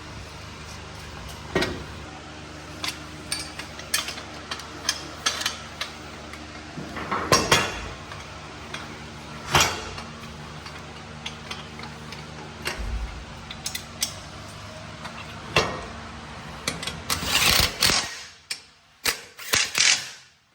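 Hand tools and metal exhaust parts clicking, clinking and knocking during header installation, with irregular sharp clicks and a few quick clusters. A steady low hum sits underneath and drops away near the end.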